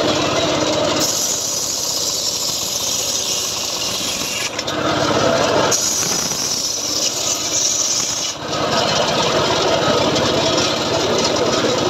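A large homemade circular saw bench ripping jowar wood planks, the blade cutting with a loud, high rasping hiss. The sound drops lower for about a second, about four and a half seconds in, and dips again near eight seconds as one cut ends and the next begins.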